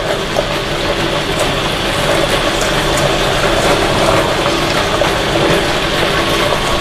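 Chili grinding machine running steadily, crushing handfuls of fresh red chilies fed into its hopper.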